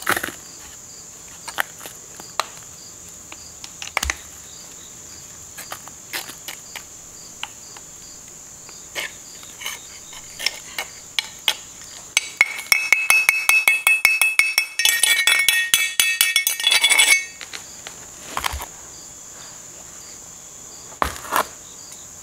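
Steel rod knocking and scraping casting sand out of a freshly poured aluminium casting. Scattered taps at first, then for about five seconds past the middle a fast run of metallic clinks as the aluminium rings. Crickets chirp steadily behind.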